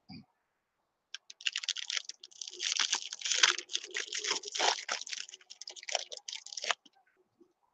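Foil wrapper of a baseball card pack being torn open and crinkled by hand, a dense crackling that starts about a second in and stops abruptly near the end.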